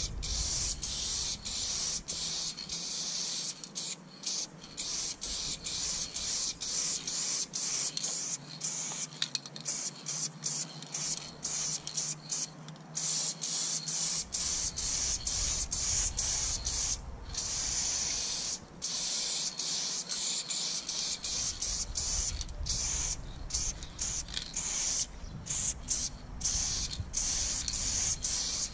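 Aerosol spray-paint can hissing as paint is sprayed onto a wall, in long sprays broken by many brief stops as the nozzle is let go and pressed again.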